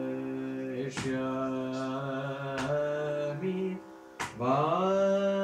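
Man singing a Carnatic kriti in raga Salagam, holding long drawn-out notes on one syllable, with a short break near the end before his voice slides up into the next note. Three sharp hand strikes about a second and a half apart keep the adi tala.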